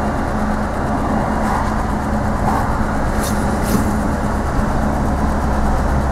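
Citroën DS being driven, its engine and road noise heard as a steady drone from inside the cabin.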